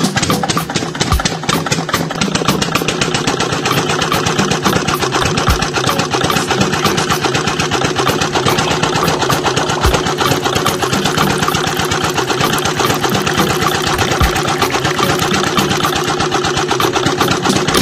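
Small single-cylinder engine running steadily at idle with rapid, even putt-putt beats.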